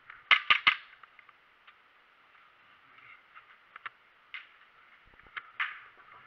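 Airsoft guns firing: three sharp shots in quick succession about a third of a second in, then scattered lighter clicks and another couple of shots near the end.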